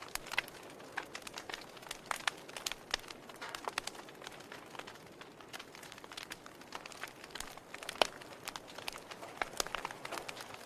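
Wood fire crackling in a fireplace: irregular snaps and pops over a soft hiss of the flames, with one sharper pop about eight seconds in.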